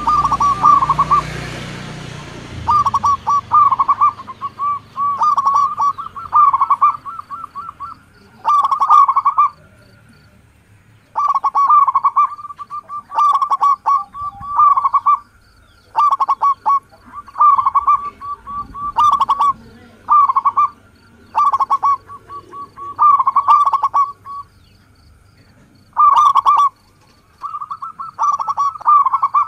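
Zebra dove (perkutut) cooing: short phrases of rapid stuttering coo notes, each about a second long, repeated every second or two with a few longer pauses.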